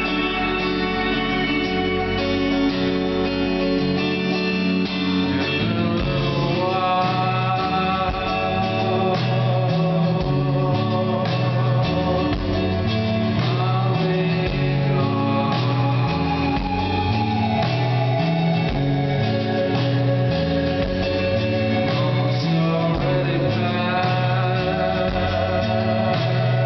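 Live rock band playing a slow song: acoustic guitar, a stepping bass line and a man singing over long held tones, recorded from the audience.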